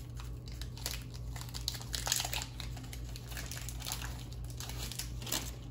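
Foil wrapper of a Dragon Ball Super Card Game booster pack crinkling irregularly as it is handled, over a low steady hum.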